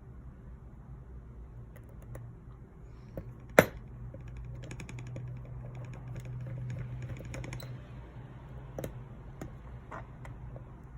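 Small scattered clicks and taps of a precision screwdriver and tiny screws being worked into a phone's frame, with one sharp loud click about three and a half seconds in, over a steady low hum.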